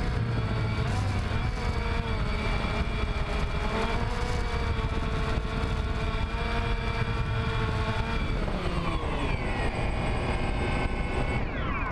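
DJI Phantom quadcopter's four electric motors and propellers whirring, heard from the camera mounted on the drone: a steady whine of several tones that waver, over a low rushing noise. The pitch drops about nine seconds in as it sets down in the grass, and near the end the motors wind down.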